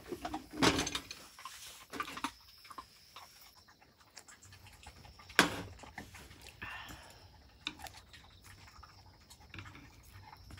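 A Dalmatian panting and eating, with a few sharp knocks and clicks in between.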